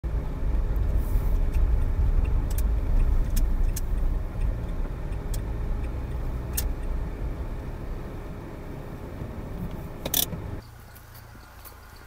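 Car rumbling at low speed, growing quieter as it slows, with scattered light clicks and a sharper click just after ten seconds. The rumble stops abruptly shortly before the end, leaving faint ambience.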